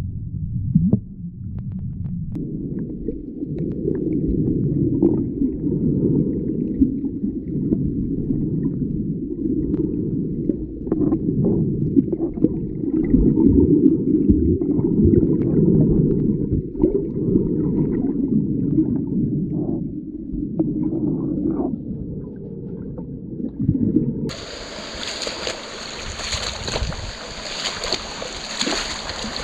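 Muffled underwater water noise picked up by a camera submerged in shallow sea water: a low rumble of moving water with scattered small clicks and knocks. About 24 seconds in it switches abruptly to open-air sound of wind on the microphone and surf.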